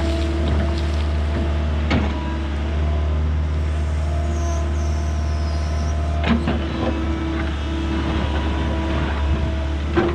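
Kobelco excavator running steadily while digging, a low drone with a steady higher whine. Three sharp knocks come a few seconds apart, the last at the very end.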